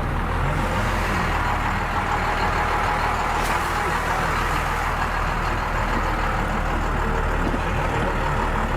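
Truck engine running steadily with a low, even hum.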